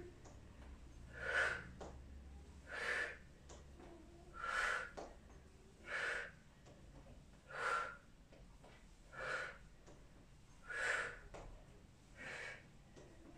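A woman breathing out hard and short in time with a knee-lift and torso-twist exercise, once per repetition, about every one and a half seconds, eight breaths in all.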